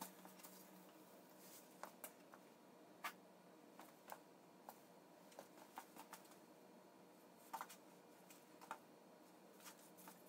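Near silence: a low steady room hum with a dozen or so faint, irregular clicks and light taps from hand work on the bench.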